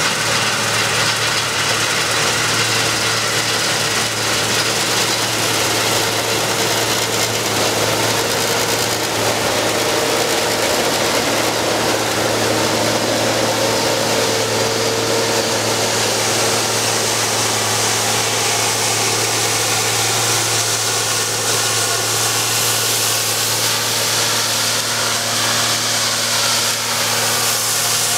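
Claas Tucano combine harvester running steadily while cutting grain: a continuous diesel engine hum under a broad, even rushing noise.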